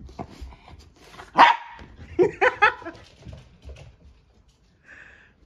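Shiba Inus play-fighting: one gives a single sharp bark about a second and a half in, then a quick run of about four short yapping barks follows.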